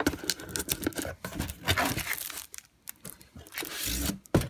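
Clear plastic wrapping crinkling as a manual in its plastic sleeve is handled, dense for the first couple of seconds, then a few scattered rustles. A low thump and a single sharp click come near the end.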